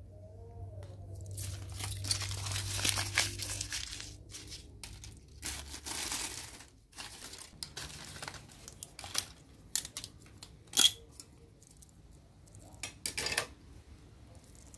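Paper and plastic wrappers being crumpled and rustled by hand in irregular bursts, with a few sharp crackles.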